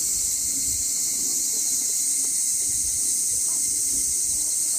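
Steady, high-pitched chorus of cicadas buzzing without a break.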